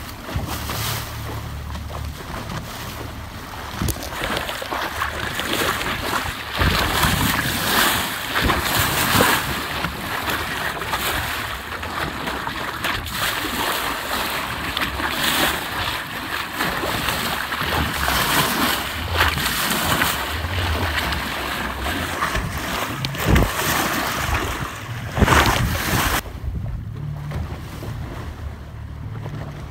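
Wind buffeting the microphone over sea water rushing and splashing past a moving boat, with the boat's motor running low underneath. Near the end the hiss of the wind drops off suddenly.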